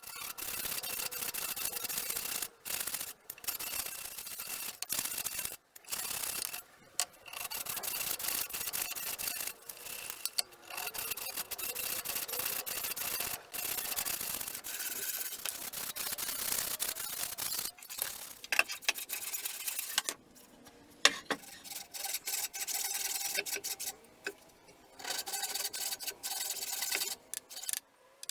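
Wood being worked by hand with an abrasive tool, sandpaper or a rasp: scratchy rubbing in runs of a few seconds, broken by short pauses.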